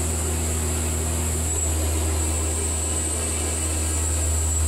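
Baker portable bandsaw mill running steadily, its saw head travelling along the log as the band blade saws lumber: a constant low drone with a high hiss over it.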